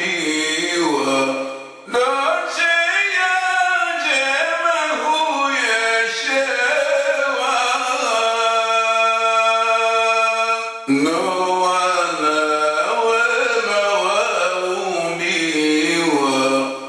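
A man's voice chanting a Comorian elegiac poem in a winding melody, with a long held note about halfway through.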